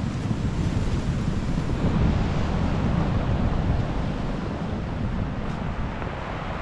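Wind buffeting the microphone in a steady low rumble, over surf breaking and washing on a pebble beach.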